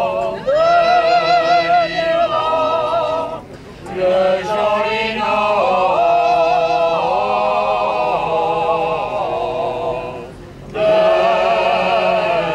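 A choir singing a slow song with long, held notes that waver, breaking off twice for a breath.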